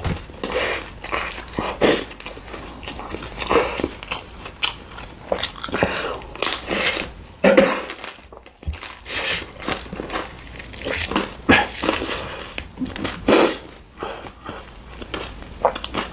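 Close-miked eating: a person biting and chewing food, with irregular sharp mouth clicks and smacks.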